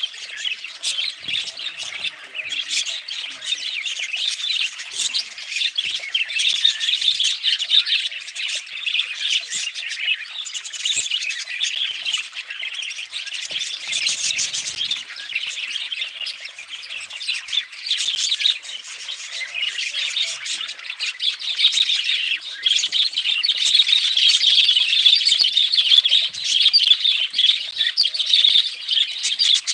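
Budgies chirping and chattering continuously, a dense run of rapid high chirps and warbles with occasional squawks, busiest in the second half.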